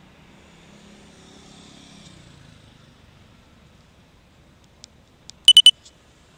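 Faint street traffic noise, then three quick, loud, high-pitched electronic beeps in a row about five and a half seconds in.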